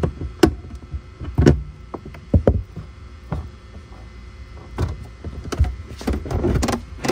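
Car trunk side trim panel and its carpet lining being pulled and worked by hand: a series of irregular knocks and thumps, with a stretch of rustling near the end.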